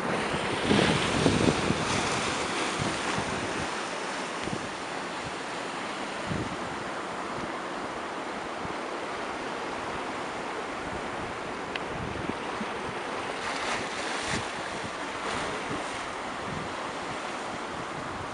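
Surf washing in over shoreline rocks, a steady rush of breaking waves, with wind buffeting the microphone; the loudest rush comes about a second in.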